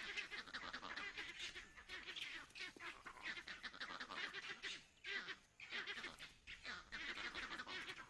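A troop of vervet monkeys calling: many rapid, overlapping shrill calls, with a short lull about five seconds in.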